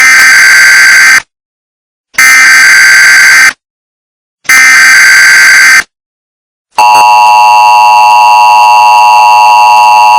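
Emergency Alert System header: three short bursts of shrill, warbling digital data tones, each a little over a second long with a second of silence between them. Then, about two-thirds of the way through, the loud, steady two-tone EAS attention signal begins and holds.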